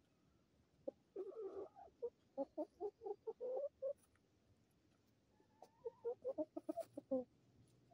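Light Brahma chickens clucking as they feed on scraps: a run of short clucks starting about a second in, a pause, then another run past the middle.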